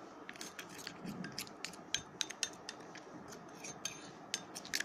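Metal spoon stirring a thick, wet face-pack paste in a small bowl, clinking and scraping against the bowl's sides in irregular clicks, several a second.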